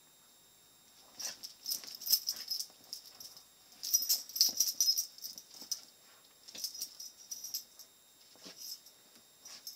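A dachshund and a kitten play-fighting on a bed: bursts of scuffling and rattling in several rounds a second or two long, the first starting about a second in.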